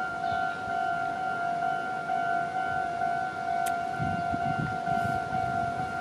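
Japanese railway level-crossing warning bell ringing its steady, evenly repeating "kan-kan" tone while the red lights flash. A low rumble comes in about four seconds in.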